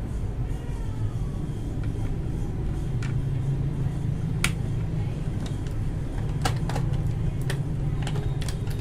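Akko Matcha Green mechanical keyboard switches being snapped into a keyboard one by one: scattered sharp clicks, a few in the middle and more close together near the end, over a steady low hum.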